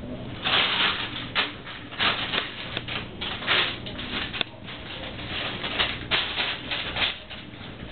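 Plastic bag crinkling and rustling in irregular bursts as a ferret grabs and drags it across a tiled floor.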